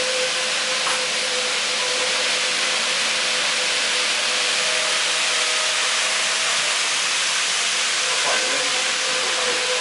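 Model trains running on a layout: a steady hiss of wheels and motors with a faint steady hum beneath, unchanging in level.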